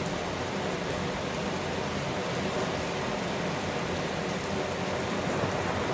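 Heavy rain falling steadily in a downpour, an even hiss with no breaks.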